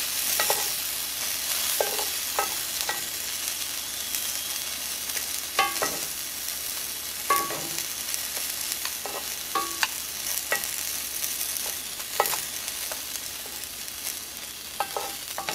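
Garlic cloves and Roma tomatoes sizzling in a hot cast-iron skillet, a steady hiss. About a dozen scattered clicks and knocks of a wooden utensil against the pan as the garlic cloves are picked out.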